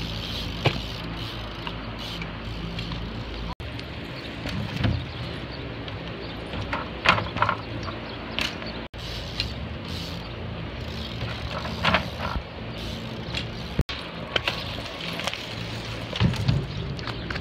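Bicycles riding over dirt and concrete: tyres rolling with a steady rumble, broken by a scattering of sharp knocks and clatters from the bikes hitting ramps and bumps.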